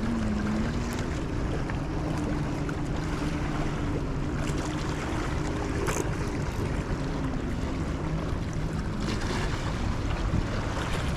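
Steady wind noise on the microphone over water at the shore, with a low steady hum underneath.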